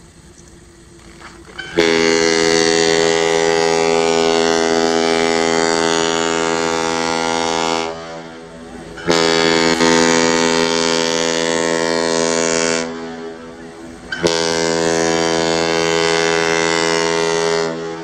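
Ship's horn sounding three long steady blasts at one pitch: the first about six seconds long, the next two about three to four seconds each, with short gaps between.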